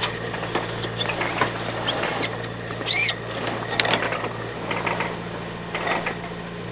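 A boat engine running steadily under irregular knocks, rattles and creaks of rigging as a sail is hauled up the mast, with a brief squeak about three seconds in.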